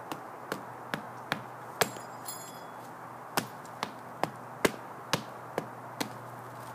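A regular series of sharp knocks, a little over two a second, with a short pause in the middle.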